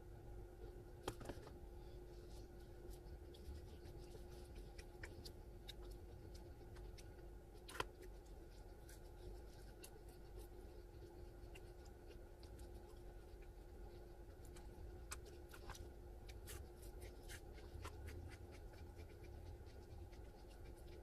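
Quiet scraping and scattered small clicks of a plastic fork working at food in a takeout breakfast container, with two sharper clicks about a second in and near eight seconds, over a steady faint hum.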